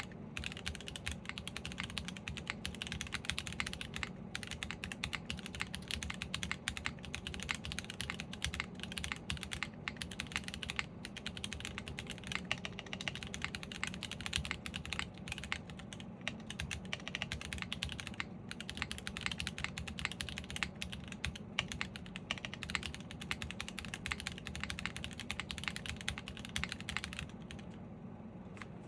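Fast typing on a gasket-mounted custom mechanical keyboard, a Shelby 80 TKL with an aluminum plate, factory-lubed Vertex V1 linear switches and GMK keycaps: keystrokes in a dense, even stream. The typing stops about a second and a half before the end.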